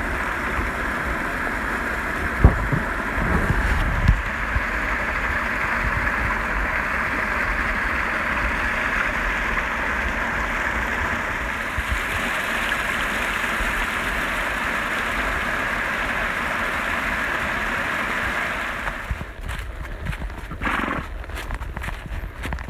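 Small rocky creek rushing and splashing over stones in a steady wash, with a few knocks of a horse's hooves in the first seconds. About nineteen seconds in the water sound falls away, and the horse's hooves are heard stepping through dry leaves.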